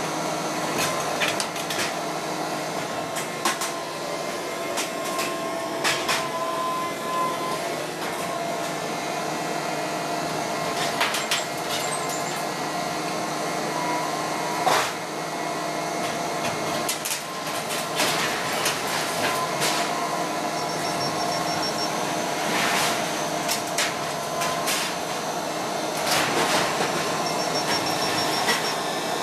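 Volvo high-reach demolition excavator working: a steady drone of its diesel engine and hydraulics, with frequent sharp knocks and clanks from the demolition work.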